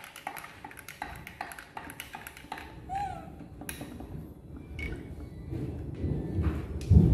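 A metal teaspoon clinking against a drinking glass as milk is stirred and spooned out: a run of short light clinks and pings, with a brief squeak about three seconds in.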